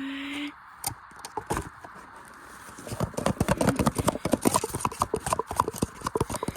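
Black washing machine rattling with fast, loud knocks, about nine a second, starting about three seconds in, as it is run to destruction. A short steady tone sounds at the very start.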